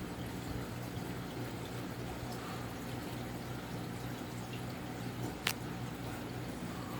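Casablanca Delta II 52-inch ceiling fan running: a steady motor hum over a whoosh of moving air, with a single sharp click about five and a half seconds in.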